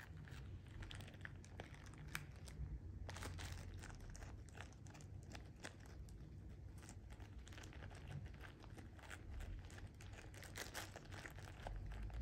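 Clear plastic treat bag crinkling and tearing as a cat pulls at it with its mouth and paws: irregular, faint crackles and rustles.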